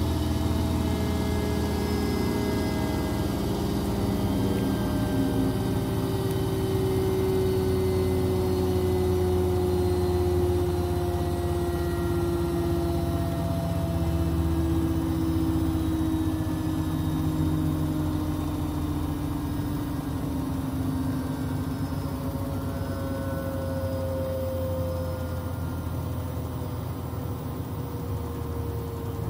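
Beko front-loading washing machine running, its motor and turning drum giving a steady hum with whining tones that slowly drift down in pitch.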